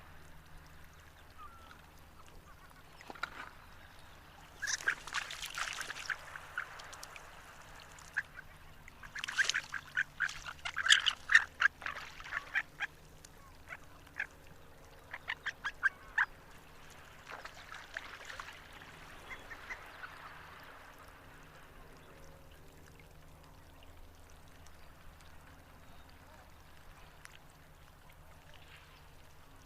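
Harlequin duck calling: several bouts of rapid, high, squeaky notes, the loudest about eleven seconds in, then mostly quiet over the last third.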